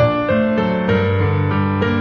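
Background music: piano-like notes playing a slow melody over held bass notes.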